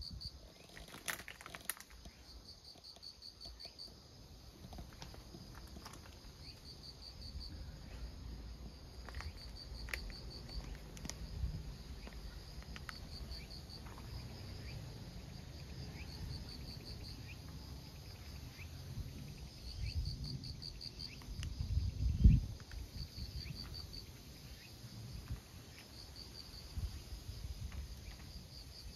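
An insect trilling in short, high-pitched runs of rapid even pulses, repeated with brief gaps between them. Low rumbling runs underneath, with a louder low thump about three quarters of the way through.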